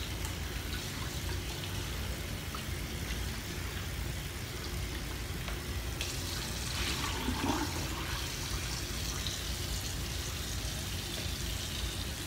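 Water running steadily, a continuous rushing hiss that grows a little louder about six seconds in.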